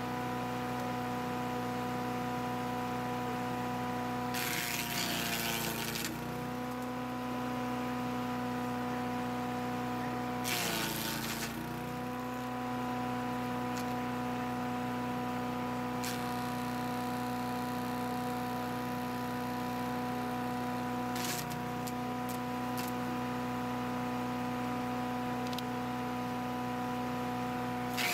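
Electric wood chipper running with a steady motor hum. Twice, at about four and a half and ten and a half seconds, it breaks into a loud rasping of wood being chipped for a second or two while the motor's pitch dips under the load. There is a brief shorter burst near twenty-one seconds and another at the very end.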